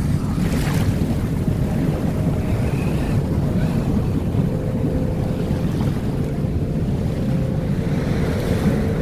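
Steady low rush of waves and water with wind buffeting the microphone, and a faint steady hum.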